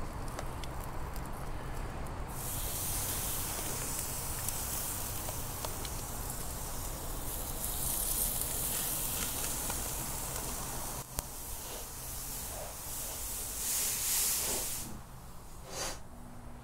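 Marinated king mackerel steaks sizzling on the hot grate of a gas grill running on high heat, the hiss rising and falling as the steaks go down. It drops away near the end as the grill lid is closed.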